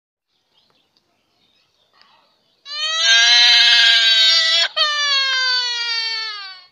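A baby's long, high-pitched cry starting about two and a half seconds in, broken by a short catch about two-thirds of the way through, the second part slowly falling in pitch.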